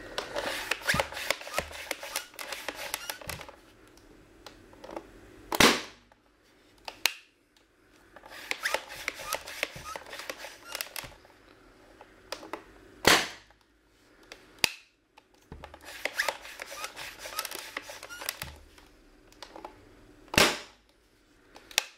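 A modified Nerf Air Tech 3000 pump-action air blaster is pumped and fired three times. Each round is a few seconds of rapid pumping strokes, which charge it at four pumps per shot, then one sharp, loud release of air as a weighted foam dart is shot. A fainter knock follows about a second and a half after each shot.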